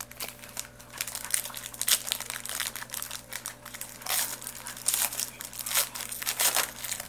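Foil wrapper of a trading card pack crinkling and crackling as it is handled and pulled open by hand, in irregular rustles throughout.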